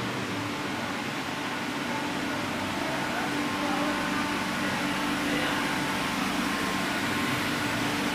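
Machinery of an HDPE pipe extrusion line running: a steady hum with a few constant tones over an even rushing noise.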